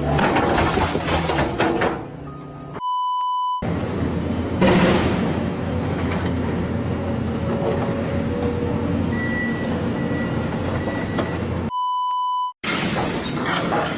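Two steady 1 kHz electronic bleeps, each about a second long, one about three seconds in and one near the end, of the kind dubbed over swearing, cut into a steady rumbling mechanical noise.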